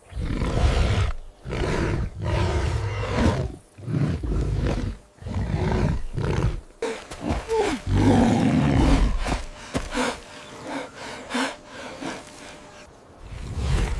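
Animal roars and growls in a series of loud, rough calls about a second long with short breaks between them, weaker after about ten seconds.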